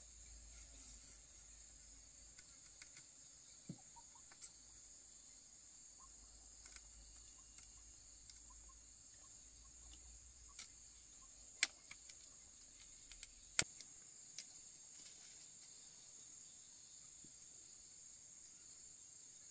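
Insects, crickets by their sound, chirping as a steady high-pitched chorus. A few scattered sharp clicks, two louder ones about two-thirds of the way through.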